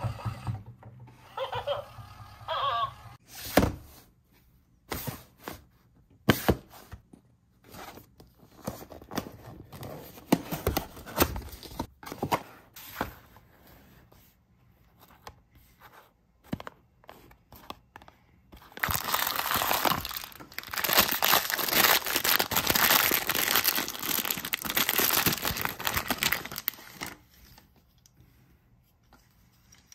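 Toy packaging being handled and opened: scattered clicks and clunks, then past the middle about eight seconds of dense crinkling and tearing as the packaging is torn open.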